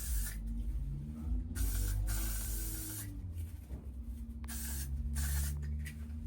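Aerosol can of Got2b Glued hairspray being sprayed onto wig lace in several hissing bursts, the longer ones lasting about a second, to set the lace.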